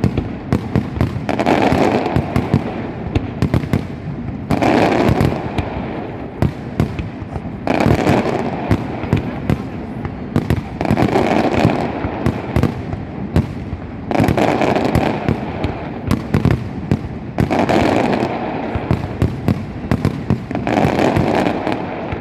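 Fireworks going off in a dense, unbroken barrage of bangs and firecracker cracks, swelling into louder waves about every three seconds.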